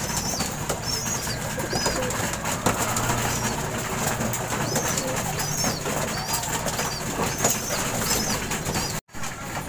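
Flock of pigeons feeding at a grain trough: many quick pecking clicks against a low cooing, with short high chirps repeating throughout.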